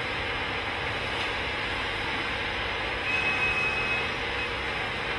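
Steady running noise of a railway track-laying machine, with a thin high whine for about a second near the middle.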